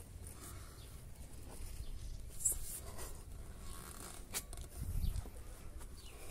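Rustling and scraping of a handheld phone being carried while someone walks, with a few sharp clicks and some soft footfalls near the end.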